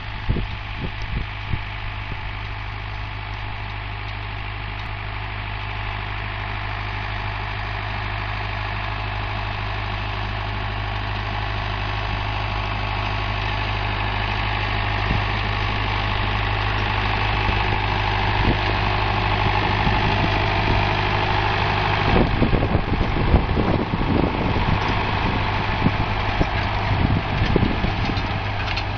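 David Brown 996 tractor's four-cylinder diesel engine running steadily while pulling a four-row maize planter, growing louder as it comes closer. Irregular thumps and rattles join in over the last several seconds as it draws near.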